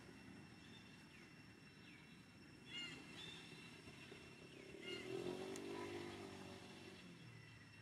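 A motor vehicle, such as a motorcycle, passing faintly: its engine hum swells about halfway through and fades away. Short high chirps sound now and then over a steady high-pitched whine.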